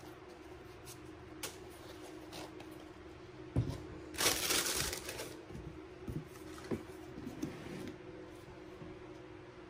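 Tissue paper rustling and crinkling for about a second as it is folded inside a cardboard shoebox, with a low thump just before it and a few light knocks of the box and sneaker being handled afterwards.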